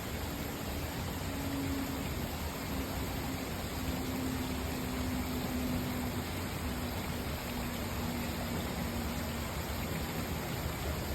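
Waterfall water rushing steadily, an even roar of falling water.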